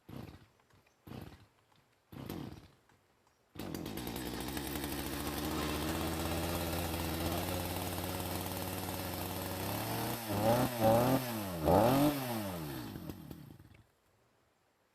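Stihl MS 250 two-stroke chainsaw being pull-started with its recoil starter, fitted with a homemade PVC pawl: three short pulls, then it catches about three and a half seconds in and idles steadily. Near the end it is revved up and down three times, then runs down and stops.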